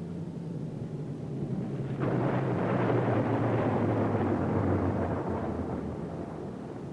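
Time machine sound effect: a steady low electronic hum, joined about two seconds in by a sudden rushing rumble that swells and then slowly fades.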